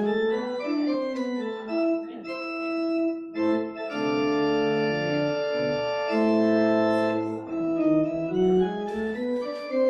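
Organ playing a slow piece of sustained chords with a moving melody, one chord held for about two seconds midway: a postlude at the close of a church service.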